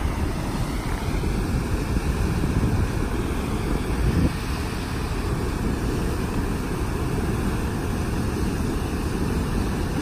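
Water gushing out of a dam's outlet tunnel and churning in the channel below, a steady rushing noise, with wind buffeting the microphone and a brief louder gust about four seconds in.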